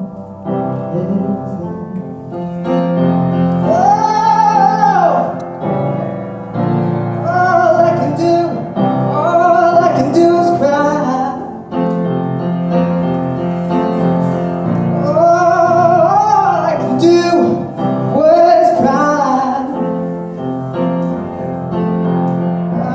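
Piano playing under a solo singing voice that holds long notes with wide vibrato.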